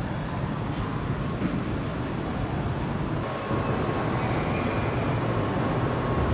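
Steady city din: a low traffic-and-machinery rumble with no clear single event. It gets louder and denser about three and a half seconds in, with faint steady tones on top.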